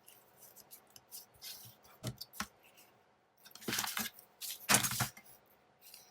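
Paper being handled and torn by hand: light rustles and clicks, then two short rips about four and five seconds in.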